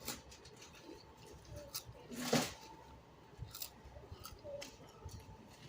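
Quiet eating sounds at the table: scattered small clicks and mouth noises, with one louder, noisier sound a little over two seconds in.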